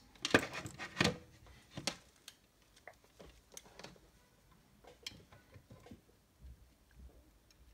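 Handling a digital multimeter and its test leads on a self-healing cutting mat: a few sharp knocks and clicks in the first two seconds as the meter is set down, then lighter taps and rustles.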